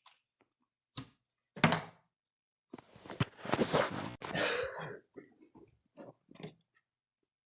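Loudspeaker wired to mains voltage from a wall outlet popping and crackling as it burns out: a few sharp pops, then about two seconds of dense crackling with a loud snap in it, trailing off into faint pops.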